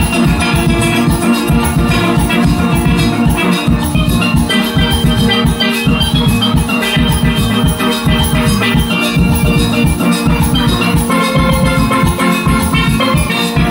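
Steel band playing live: steelpans carry melody and chords over a driving drum and percussion beat.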